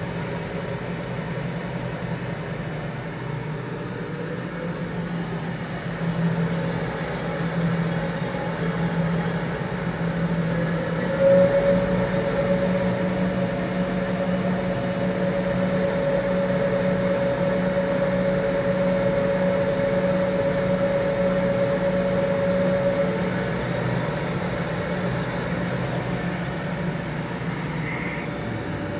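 A garment-workshop machine's electric motor running steadily with a low hum; about a third of the way in it gets a little louder and a higher steady whine joins it for about twelve seconds, then fades.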